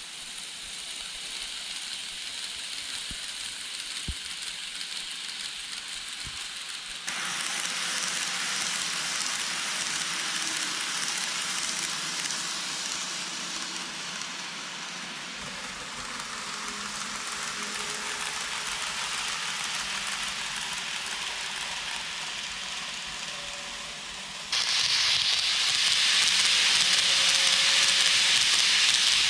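KATO N gauge 683 series 4000 'Thunderbird' model train running on the layout track: a steady hiss of small wheels on the rails and the motor. It gets abruptly louder about seven seconds in, and louder again near the end, with the train close by.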